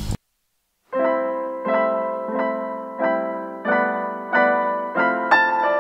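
Background music: a piano repeats a chord about every two-thirds of a second, each chord fading before the next. It comes in about a second in, after a brief moment of complete silence.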